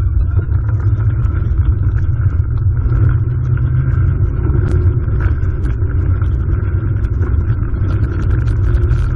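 Shweeb Racer pedal-powered monorail pod rolling along its overhead rail, heard from a camera mounted on the pod: a loud, steady low rumble with a faint steady whine over it.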